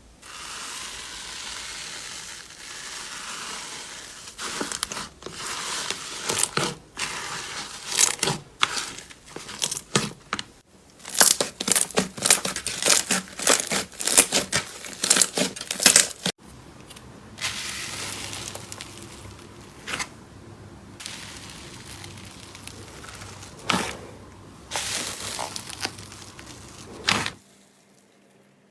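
Slime being squeezed, pressed and pulled by hand, giving crackling and popping clicks over a soft squelching hiss. The clicks come thick and loud for several seconds, then thin out after a sudden break, and the sound cuts to near silence just before the end.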